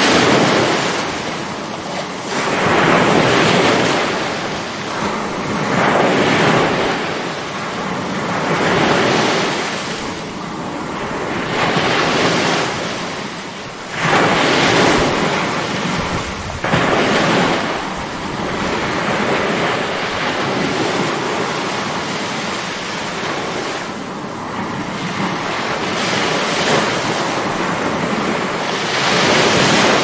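Rough, stormy surf: waves breaking and washing in one after another, each surge swelling and falling away every few seconds. Two sudden, louder crashes come close together about halfway through.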